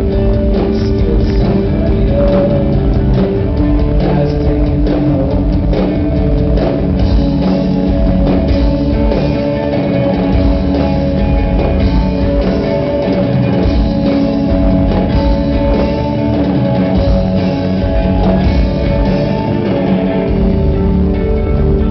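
Rock band playing live: electric guitars with sustained ringing notes over bass and a drum kit, at a steady high level.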